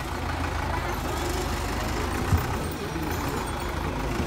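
Farm tractor's diesel engine idling steadily, with one short thump about two seconds in.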